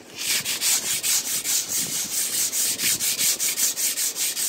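Sandpaper scrubbed by hand over a rusty chrome exhaust tip, a scratchy rubbing in quick, even strokes of about five a second, taking the rust off the chrome.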